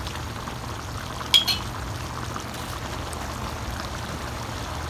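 Chicken caldereta simmering in an aluminium pan, a steady bubbling hiss over a low hum. About a second and a half in, a metal ladle clinks sharply against the pan twice in quick succession.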